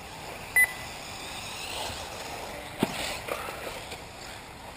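A short, high electronic beep about half a second in, then a sharp knock just before three seconds, over faint outdoor background.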